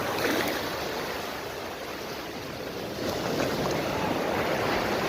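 Sea waves washing onto a sandy beach: a steady rushing wash that swells again about three seconds in.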